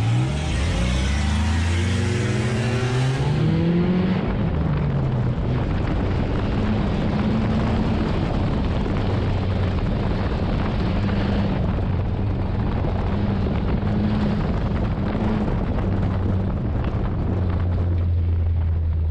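Nissan enduro race car's engine heard from inside the stripped cabin under hard throttle, its pitch rising over the first few seconds as it accelerates, then running steadily at high revs with loud road and drivetrain noise.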